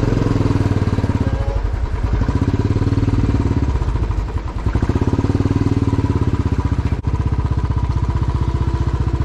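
Motorcycle engine running under way, its firing pulses steady; the engine note eases briefly about four seconds in and then picks up again.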